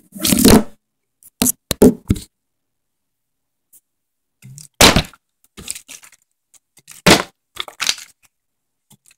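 Partly filled plastic water bottle being flipped and landing or falling over on a drawer top: a series of sharp knocks and thuds, the loudest about half a second in, near five seconds and about seven seconds in, with smaller clicks between.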